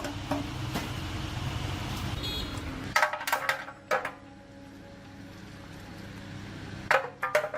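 A low, steady mechanical rumble that stops abruptly about three seconds in, followed by sharp metallic clinks and taps in two clusters, one just after the stop and another near the end.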